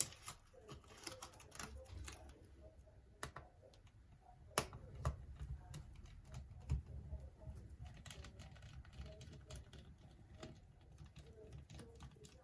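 Scattered light clicks and taps of small tools and plastic laptop parts being handled and worked on, with one sharper click about four and a half seconds in.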